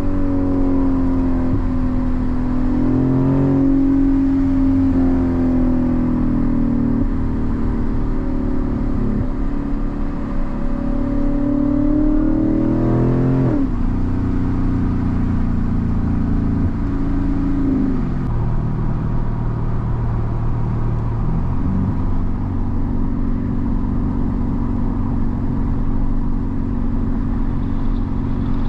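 Lexus IS-F's 5.0-litre V8 pulling under throttle, its pitch rising and falling with the revs. Several quick jumps in pitch come past the middle, likely gear changes, and it then settles into a steady run.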